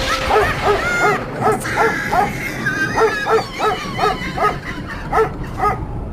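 A dog barking in quick, high yips, about three a second.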